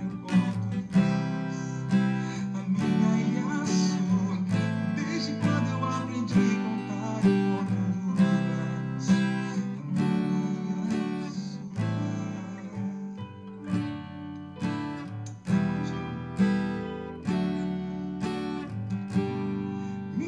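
Steel-string acoustic guitar strummed with the fingers, playing a chord progression in a slow, steady rhythm.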